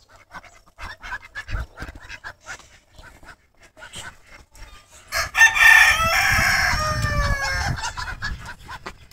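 Faint scattered clucks, then a rooster crowing loudly for about three seconds starting about five seconds in, the call falling in pitch at its end.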